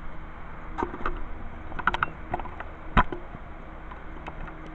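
Cardboard shipping box of an exercise bike and the wrapped parts inside being handled: a scattering of knocks and clicks, the loudest a single thump about three seconds in, over a steady low hum.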